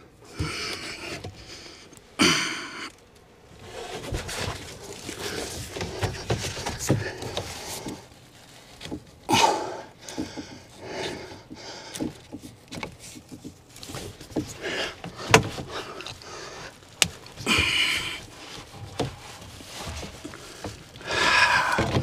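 A man crawling through a cramped attic among ducts and conduit: irregular rustling and scuffing with scattered knocks, a sharp click about fifteen seconds in, and his breathing in between.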